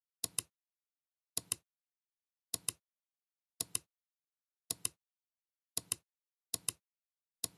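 Computer mouse clicking in quick pairs, about one pair a second, with silence in between: about seven pairs in all, as clips are selected one after another and given an animation.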